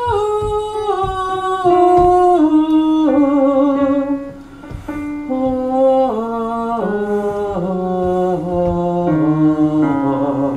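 A woman's voice singing a slow descending scale, holding each note briefly before stepping down to the next. It is a range test on the way down toward her lowest note.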